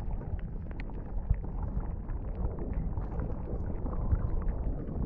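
Underwater sound picked up by a submerged camera in shallow reef water: a muffled rumble of moving water with many small sharp clicks and crackles scattered through it.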